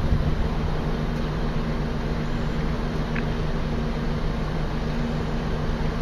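Steady low mechanical hum with constant low tones over a rumbling noise, unchanging throughout.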